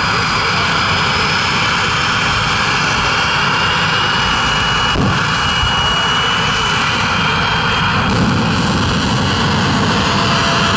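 A jet truck's jet engine runs loud and steady, with a high turbine whine that slowly rises in pitch. About eight seconds in the low rumble grows heavier and the whine fades as the afterburner lights for the run.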